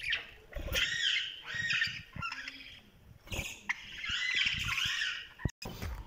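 Caged parakeets chattering: two stretches of repeated arching chirps and squawks, the first starting about half a second in and the second from about three and a half seconds to five.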